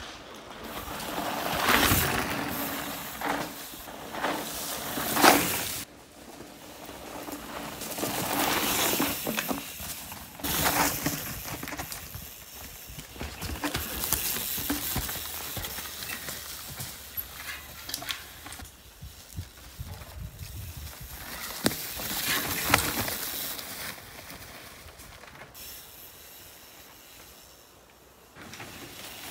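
Mountain bikes riding on a dirt trail: tyres rolling over dirt and roots, rising and falling in several louder passes with sharp knocks, mixed with rustling from a camera handled close.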